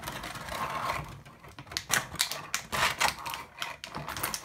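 Small plastic toy parts and their packaging being handled: a rustle, then a quick run of sharp clicks and taps.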